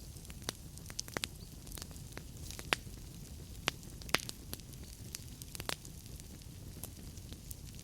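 Wood fire burning in a fireplace: irregular sharp crackles and pops of the burning firewood, several a second, over a steady low rumble of the flames.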